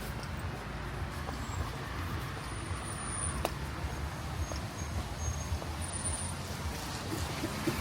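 City traffic in the rain: a steady low engine rumble from vehicles on the street over an even hiss of rain and wet road.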